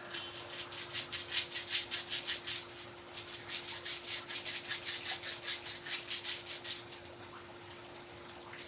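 Quick, even rubbing strokes of a massage on the patient's body, about five a second, pausing near the end, over a steady low hum.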